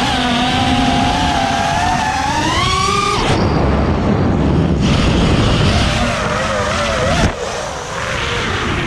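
FPV quadcopter's brushless motors whining, the pitch rising with throttle about two to three seconds in, then cut off abruptly, with a rougher rushing stretch and another sudden break later.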